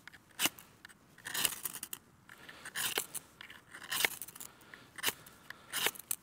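Flint and steel (tulukset) being struck over and over: about six short, sharp scraping strikes, roughly one a second, each throwing sparks into tinder to start a fire.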